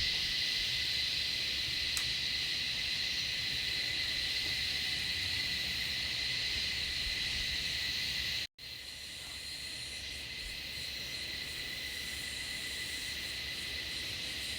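Chorus of Australian bush cicadas during breeding season: a steady, high buzzing drone that sounds like static. It cuts out abruptly for a moment about eight and a half seconds in, then carries on slightly softer.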